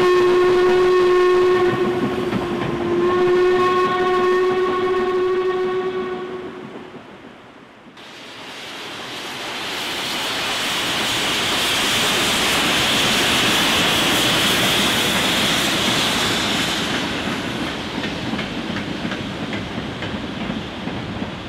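Steam locomotive whistle sounding two long, steady blasts, the second ending about six seconds in. After a break, a steam-hauled goods train passes, its wheel and rail noise building to a peak and slowly fading.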